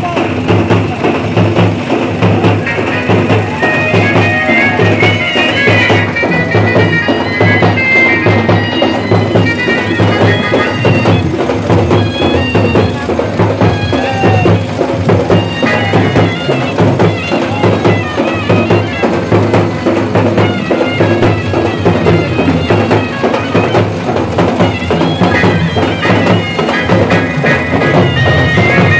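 Live procession music: a shrill reed wind instrument plays a melody over a steady, insistent drum beat.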